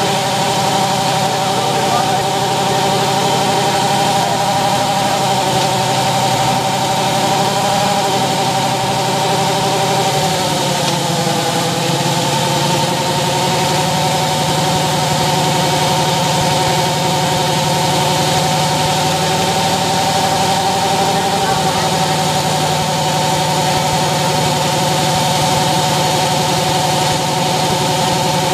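Harley-Davidson Fat Boy's V-twin engine running steadily in gear, driving a roller rig. Its pitch dips slightly about ten seconds in and again at the very end as the throttle eases.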